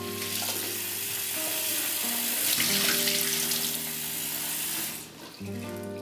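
Cold tap water running into a saucepan of boiled eggs in a sink, cooling them, shutting off about five seconds in.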